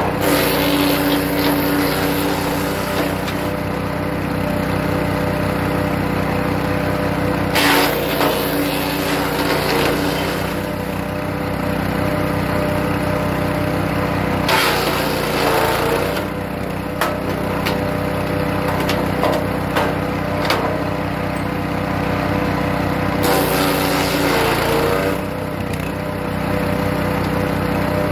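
Hecht 6208 wood chipper's small petrol engine running steadily, with four bursts of loud chipping noise as birch branches are fed through. The engine pitch dips under the load of each branch.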